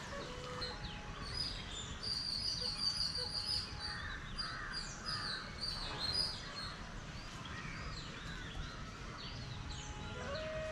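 Several birds chirping and calling, with a sustained high trill from about two seconds in for roughly three seconds; faint music comes back in near the end.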